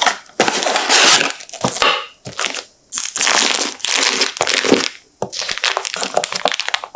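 A paperboard carton of squeeze-pack whipped cream is pulled open, then the cream's plastic piping bag and its film wrapper crinkle loudly as they are handled, in several bursts.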